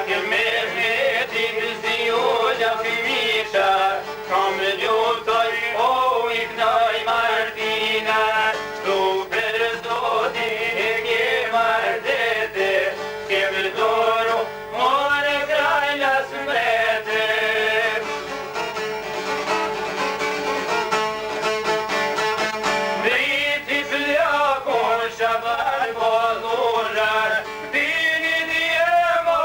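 A man singing an Albanian folk song to two plucked long-necked lutes (çifteli), with a steady drone under the melody. The singing eases off for a few seconds past the middle and then picks up again while the lutes keep playing.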